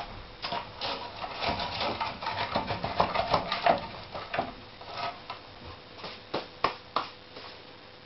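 Split firewood logs knocking and clattering against each other and the metal firebox as they are stacked into a wood-burning stove: a dense run of knocks in the first half, thinning to a few single knocks near the end.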